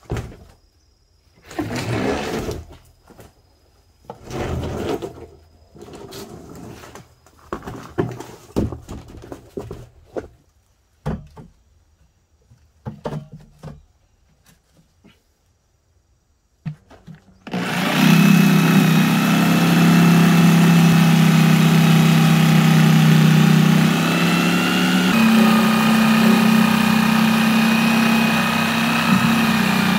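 Irregular knocks and scrapes from handling corrugated plastic drain pipe and a plastic catch basin on the ground. About 17 seconds in, a handheld electric power tool starts and runs steadily against the plastic catch basin, with a slight shift in pitch about 25 seconds in.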